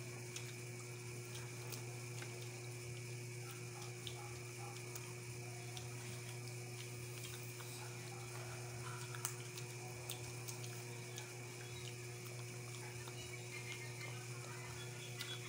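Occasional faint sharp cracks and clicks of peanut shells being split by hand, over a steady low electrical hum.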